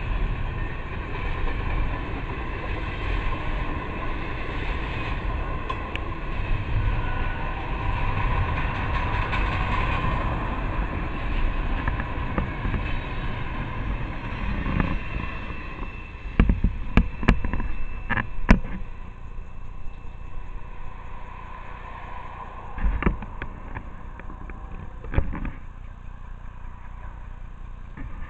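Double-stack container well cars of a CSX intermodal freight train rolling past on the rails, a steady wheel-and-rail noise that drops off about halfway through once the last car has passed. Several sharp knocks follow in the quieter second half.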